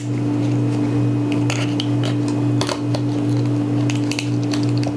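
A few sharp clicks and crunches of an oyster shell being pried open with a small tool, over a steady low hum.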